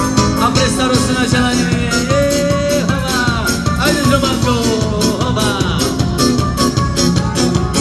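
Live band playing an upbeat song: electric guitar and bass guitar over a steady drum beat, with a man singing into a microphone.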